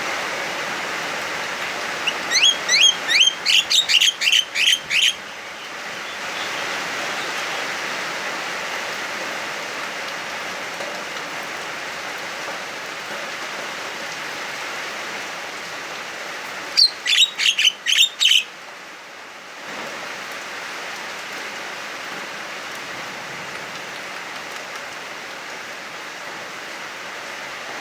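Javan myna giving two loud runs of rapidly repeated, rising, whistled calls, about ten notes near the start and about seven more past the middle, over the steady hiss of heavy rain.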